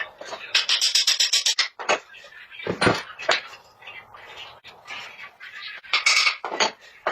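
Woodworking hand tools clinking and knocking: a quick rattling run of light metallic taps, then several separate knocks, the heaviest about three seconds in.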